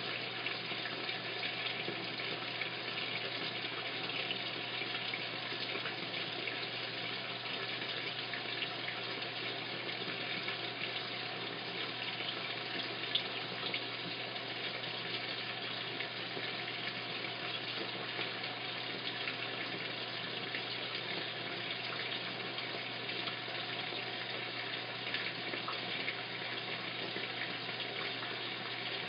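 Washing machine filling: a steady rush of water pouring into the drum, with a low steady hum beneath it.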